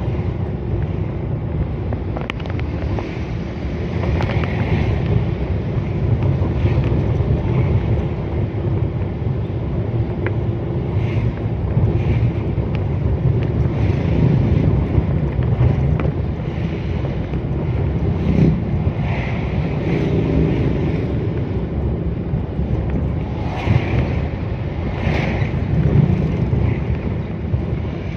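Steady low rumble of a vehicle driving along a road, engine and tyre noise, with wind noise on the microphone.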